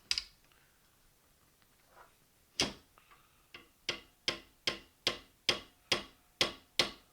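Metal tapping on a punch to drive out the tight charging-handle cross pin of a CZ Scorpion Evo 3. A single click comes first, then about two and a half seconds in a steady series of sharp taps begins, about two to three a second.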